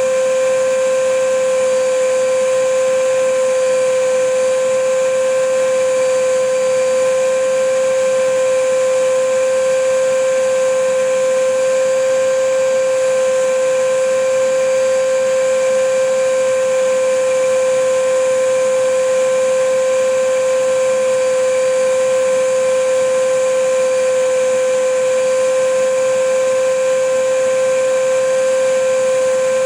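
Vacuum cleaner motor running steadily: a constant whine over an even rushing hiss, with no change in speed.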